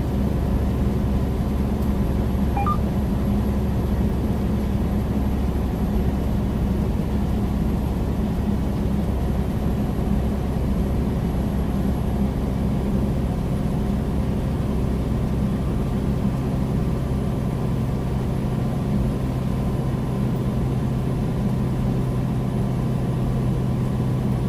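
Steady cab noise of a loaded semi-truck cruising at highway speed: the diesel engine droning evenly under tyre and wind noise.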